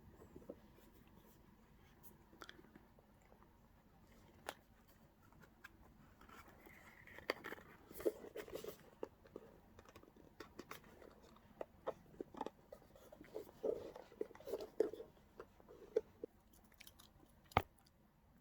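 A cat moving about on a blanket close to the microphone: soft, irregular rustling with small clicks and crackles, busiest in the middle, and one sharper click near the end.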